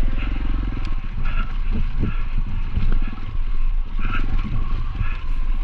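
Off-road motorcycle engine running on a trail ride, with wind noise on the microphone.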